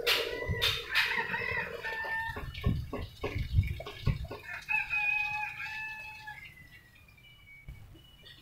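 A rooster crowing: a few shorter calls, then one long held crow about five seconds in. A few low thumps come in between.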